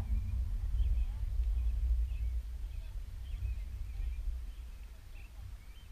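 Wind buffeting the microphone as a low, gusting rumble that eases toward the end, with faint short high calls now and then in the distance.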